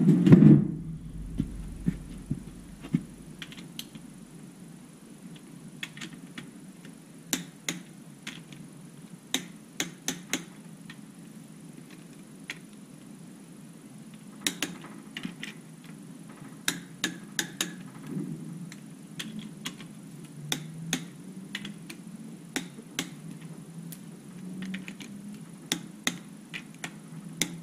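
A heavy thump at the start, then scattered sharp clicks, some in quick runs, from a long-handled socket wrench being worked on bolts in the bottom end of a Chevrolet 350 short block. A steady low hum runs underneath.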